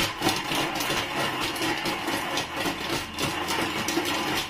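Thermomix TM6 motor running at speed 5, its blades chopping bacon, onion and chili pieces in the closed mixing bowl.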